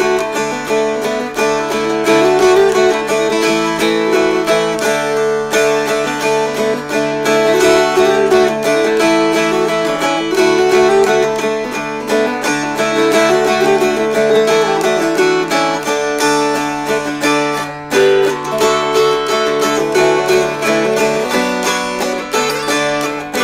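Two mountain dulcimers strummed together as a duet, a quick-moving melody over low sustained notes with steady, rapid strumming.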